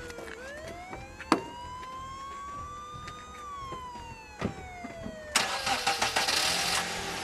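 A siren wailing, its pitch slowly rising for about three seconds and falling for about three, with a couple of sharp knocks. About five seconds in, a car engine starts and keeps running.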